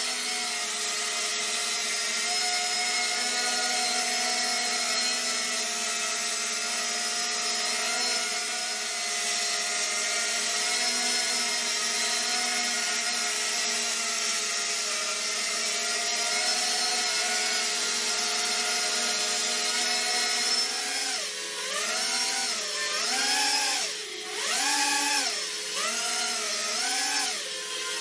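Walkera Rodeo 110 mini quadcopter's motors and propellers whining steadily in a hover. About three quarters of the way through, the pitch starts rising and falling about once a second as the throttle is worked to hold height.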